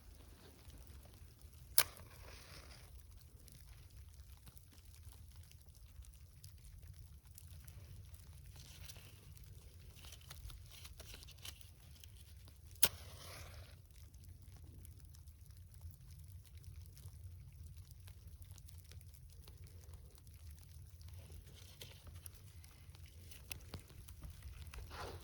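Sticks and kindling being handled while a campfire is set up: two sharp snaps about eleven seconds apart, each followed by soft rustling, over a steady low rumble.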